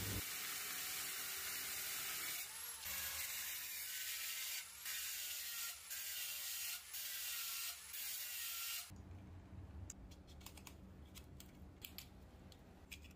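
Worx mini circular saw running through a cut, a steady noise broken by several short gaps, with an ice pick wedged in the kerf to keep the blade from binding. From about nine seconds in the sawing stops, leaving a low hum and scattered light clicks of the saw being handled.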